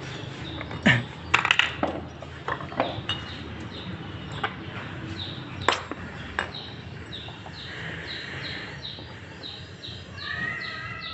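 A small bird chirping repeatedly in short high notes, a few a second, through the second half, with a few sharp clicks and knocks of hard objects being handled in the first half.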